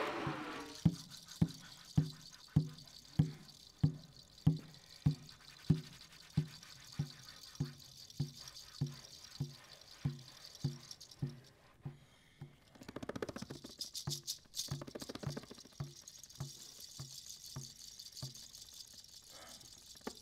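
A low drum struck in a slow, even pulse, about one and a half strokes a second, the beats growing softer as it goes on. A shaker-like rattle rustles for a couple of seconds around the middle.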